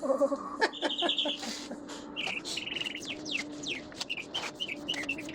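Small birds chirping: several rapid trills and many quick downward-sweeping chirps, over a steady low hum.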